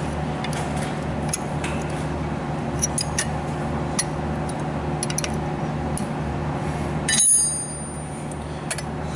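Small metallic clicks and clinks as a new EBC brake pad is worked into the caliper bracket and its metal clips, over a steady background hum. About seven seconds in there is one louder metal clank that rings briefly.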